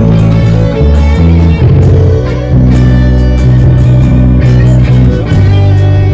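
A live band playing a song, loud: guitar chords over bass notes that change every second or so, with drum and cymbal hits.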